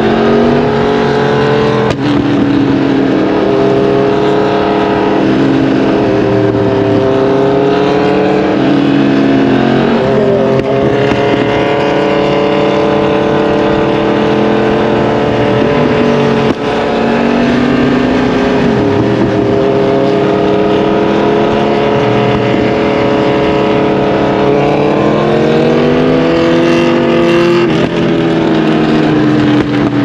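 2023 Yamaha MT-10's crossplane inline-four engine under way, its pitch rising and falling with the throttle, with four brief dips in the sound. Steady wind rush runs underneath.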